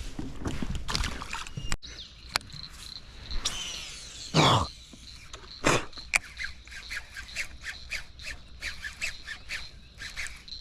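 A bird calling over and over in short notes, about three a second, over a faint steady high tone. A loud sound falling in pitch about four seconds in.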